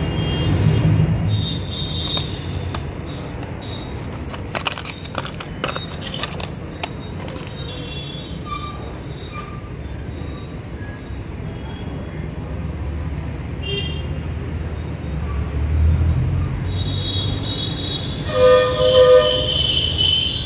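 A steady low rumble with a horn sounding several times, longest and loudest near the end. A few sharp clicks come about five seconds in.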